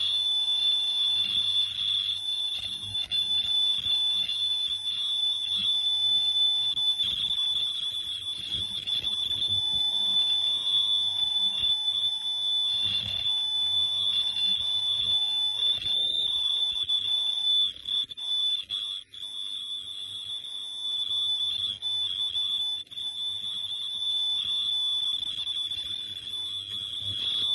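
Face-mask making machine running, with a steady high-pitched whine held without a break over a low hum and light mechanical clatter.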